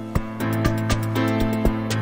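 Background music with a steady beat of about four light clicks a second over held chords.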